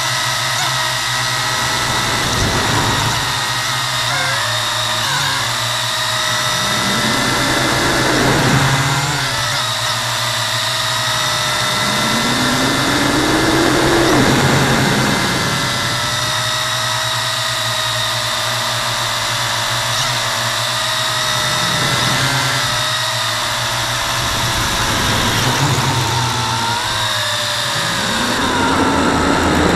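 V262 quadcopter's electric motors and propellers whining in flight, picked up by the camera mounted on the quad itself. Several pitches run together and rise and fall a few times as the motor speed changes.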